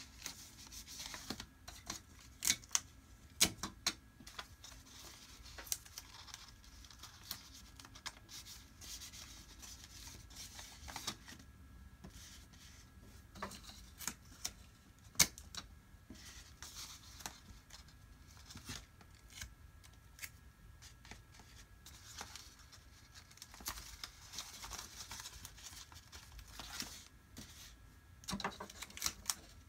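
Folded paper airplane model rustling and crinkling as it is handled and creased, with scattered sharp, irregular taps and clicks of paper against a desk.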